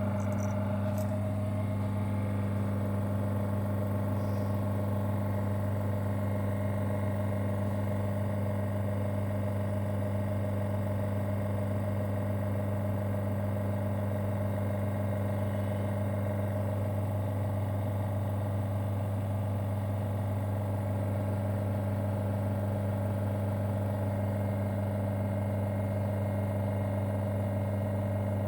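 Small electric vacuum pump of a leak-test apparatus running steadily with a low, even hum as it draws down the desiccator toward the 500 mm vacuum set point.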